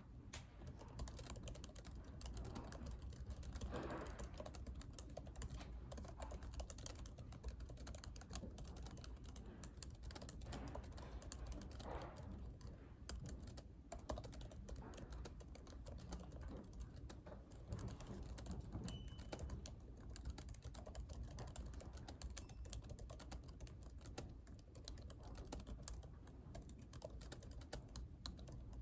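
Steady typing on a laptop keyboard: a dense run of quick, soft key clicks over a low room hum.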